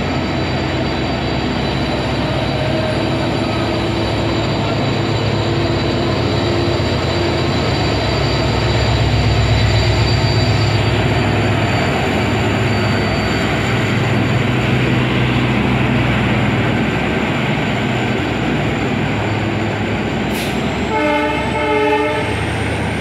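Indian Railways EMD-type diesel locomotive accelerating hard away from the station, its engine running loud at full power as it passes, then passenger coaches rolling by. Near the end a train horn sounds briefly, for about a second and a half.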